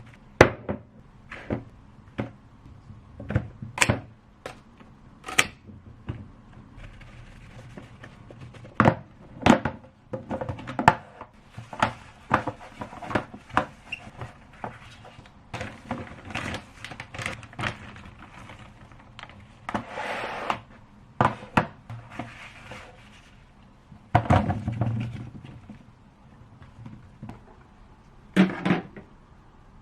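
Irregular knocks and clunks of things being handled and set down in a small room, with a short rustle about two-thirds of the way through and a heavier clatter soon after.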